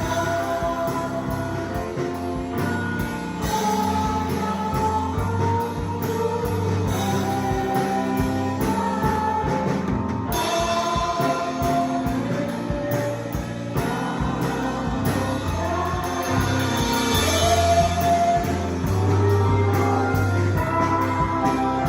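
Live worship music: a sung melody over a steady band accompaniment with a low bass line.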